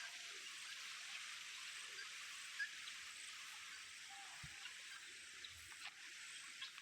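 Faint rural outdoor ambience: a steady hiss with a few soft, scattered bird chirps and a couple of small clicks.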